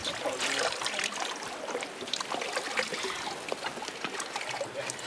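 Seawater trickling and dripping off a swimmer as she climbs a boat's metal swim ladder out of the sea, with scattered small splashes.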